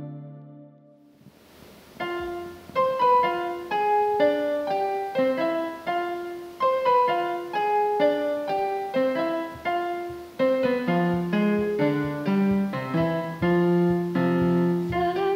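Electronic keyboard with a piano sound playing a solo introduction, a melody of separate notes, with lower bass notes joining about two-thirds of the way through. It enters about a second in, after the tail of earlier music fades away.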